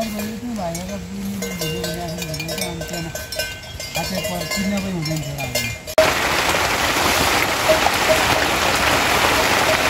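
Livestock bells clinking and ringing, over a low, drawn-out, wavering voice-like call. About six seconds in this cuts off suddenly and gives way to steady heavy rain.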